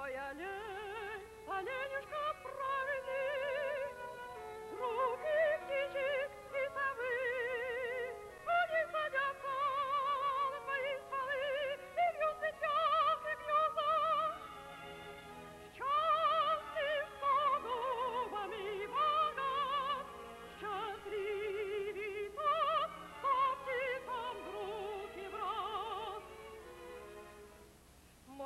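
Music: a singing voice in operatic style with heavy vibrato, carrying a melody in phrases of a few seconds each.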